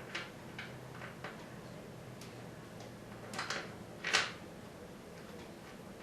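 Scattered light clicks and knocks of an exercise bike seat and its mounting screws being handled and fitted, about half a dozen in all, with a double tap about three and a half seconds in and the loudest knock just after four seconds.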